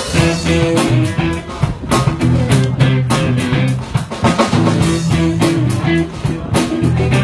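Live rock band playing: electric guitar over a drum kit, with held low notes and a steady beat.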